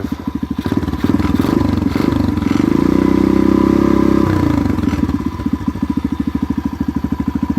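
Freshly rebuilt Loncin 125cc single-cylinder four-stroke dirt bike engine running through an aftermarket exhaust: idling with a steady, even beat, revved up about a second in, held for a few seconds, then dropping back to idle.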